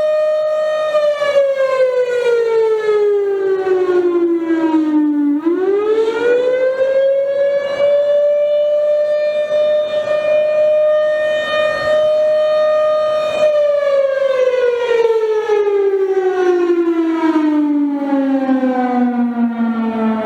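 Federal Thunderbolt 1000 outdoor warning siren sounding the Attack signal: a loud wail that holds high, falls about a second in, sweeps sharply back up about five seconds in, holds, then falls again over the last seven seconds.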